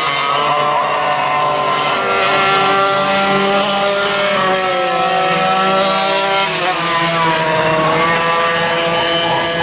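Several vintage racing go-kart engines running together on track at high revs, their pitches rising and falling as the karts accelerate and lift through the corners.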